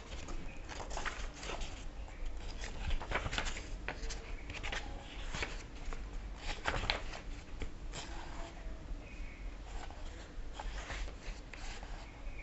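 Paper rustling and crackling as a paperback book is handled and its pages turned: irregular soft rustles and crinkles, over a steady low hum.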